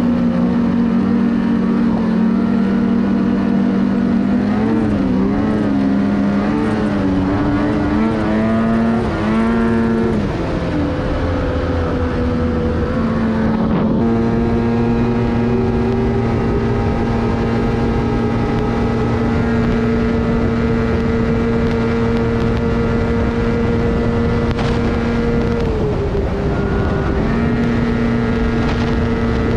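Ski-Doo MXZ 800 snowmobile's two-stroke engine running at speed. Its pitch wavers up and down with the throttle early on and then settles. After an abrupt change it holds a steady note, eases off briefly near the end and comes back up.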